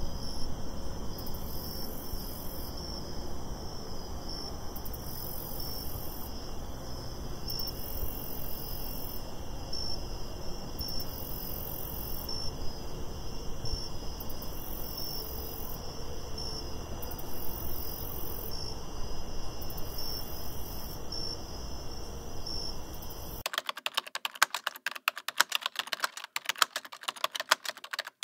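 Night ambience of crickets chirping in regular high pulses about once a second over a low steady noise. In the last few seconds it switches to rapid typing on a computer keyboard.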